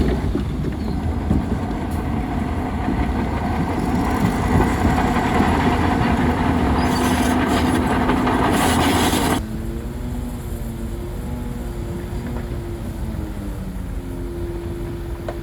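Bulldozer's diesel engine working loudly with a steady drone and a dense mechanical rattle. About nine seconds in the sound cuts off abruptly to a quieter engine sound whose pitch rises and falls.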